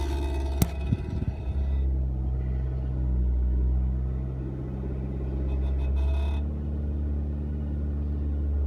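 Steady low rumble inside the cabin of a Proton Iriz, with one sharp click just over half a second in and a few quick knocks around a second in.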